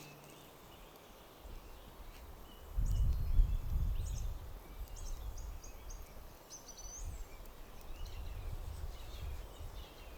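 Outdoor ambience: a low, gusty rumble like wind on the microphone, with short high bird chirps and trills through the middle.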